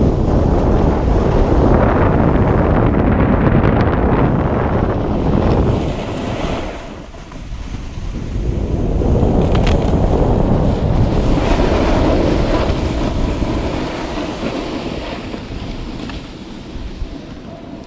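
Wind rushing over a handheld action camera's microphone during a snowboard run. It eases off briefly about seven seconds in, picks up again, then fades toward the end.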